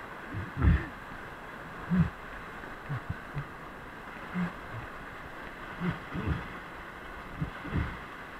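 Whitewater rapids rushing steadily, with about ten irregular low thumps close to the camera as water and the swimmer's body knock against it.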